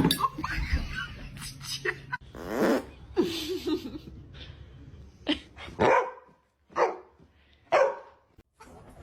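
A dog barking, a series of short separate barks.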